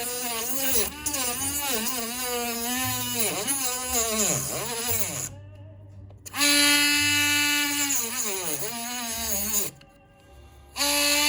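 Small handheld electric cutting tool buzzing as it melts through a charger's plastic case, its pitch dipping again and again as it is pressed into the plastic. It then runs at a steady pitch for a few seconds, stops, and starts again near the end.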